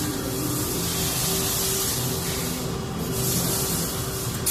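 Scorpio YU-RV101 pneumatic rivet gun hissing steadily with air while a rivet is fitted and set against the workpiece.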